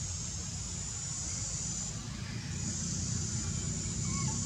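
Outdoor background noise: a steady low rumble under a high, hissing buzz that swells and drops away every couple of seconds, with a faint short chirp near the end.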